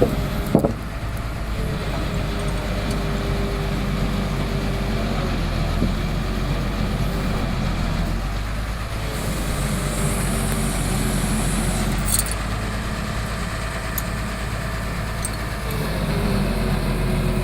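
Heavy diesel engine running steadily, with a sharp knock just after the start and a thin hiss for a few seconds past the middle.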